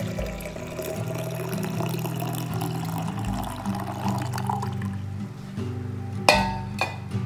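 Spinach juice pouring in a thin stream into a glass jar mug over background music. Near the end come two sharp clinks, a fraction of a second apart.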